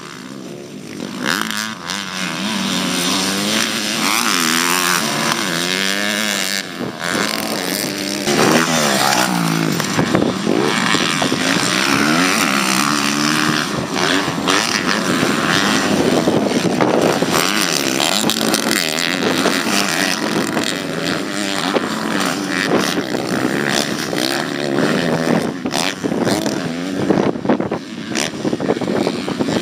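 Several small-bore 250cc-class motocross bikes racing, their engines revving up and falling back again and again as they accelerate, shift and back off through the turns, with more than one bike heard at once.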